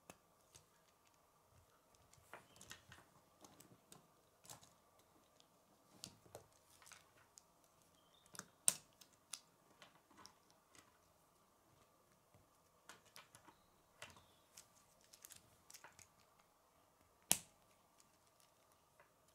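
K'nex plastic rods, connectors and a wheel clicking and snapping together as they are handled and fitted, in light irregular clicks, with two sharper snaps about nine seconds in and near the end. A faint steady hum lies underneath.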